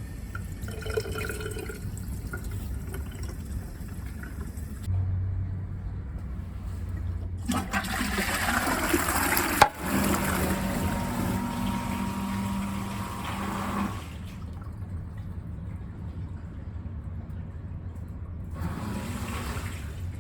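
Macerating toilet flushing: water rushes for about six seconds, with a steady low hum beneath it. A shorter rush of water follows near the end.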